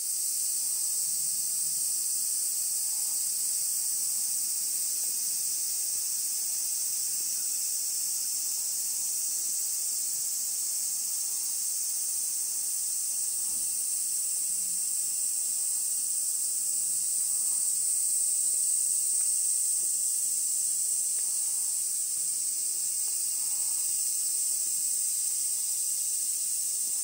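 Chorus of many cicadas shrilling together in summer trees: a steady, high-pitched hiss that swells slightly about two-thirds of the way through.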